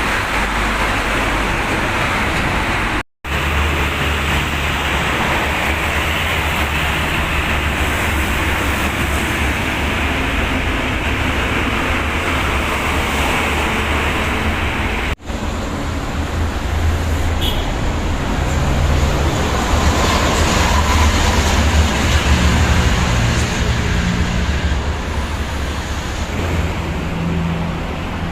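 Highway traffic rushing past: steady tyre noise and a low engine drone from heavy vehicles such as buses and trucks on a toll road. The sound cuts out for a split second twice, about three seconds in and again near the middle.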